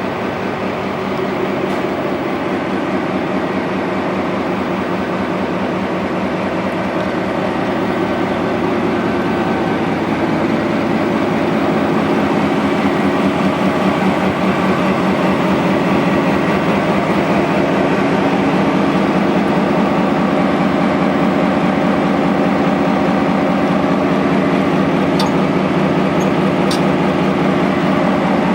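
Diesel engine of GMD locomotive No. 6540 running steadily, a low drone with rapid firing pulses that grows a little louder about ten seconds in. Two brief clicks near the end.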